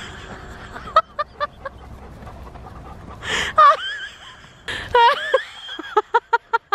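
A woman laughing: a few short laughs about a second in, breathy gasps and high sliding laugh sounds in the middle, and a quick run of ha-ha-ha pulses near the end.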